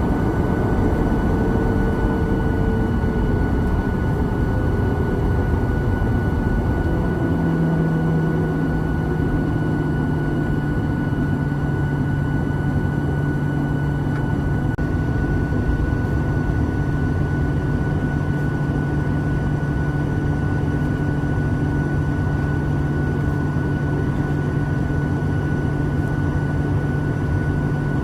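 Cabin noise inside a Boeing 737-900ER with its CFM56 engines running: a steady drone with a constant whine. About seven seconds in, a low steady hum comes in and holds.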